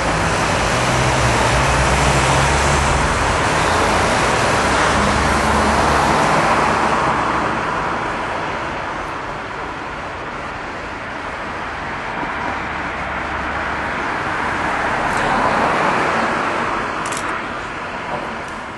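Steady rumble and hiss of traffic, loudest for the first seven seconds or so and then easing off a little.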